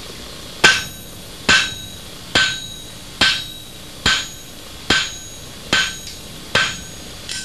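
Eight even hammer blows, a little under a second apart, with the flat of the hammer on a piece of lead lying on the anvil's flat face, each with a short metallic ring.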